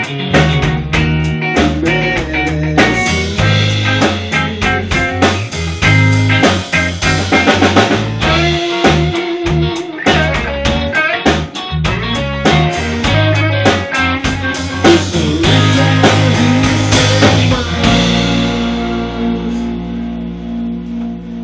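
Rock band playing: electric guitar over a drum kit. About 18 seconds in the drums stop and a final held chord rings out and slowly fades.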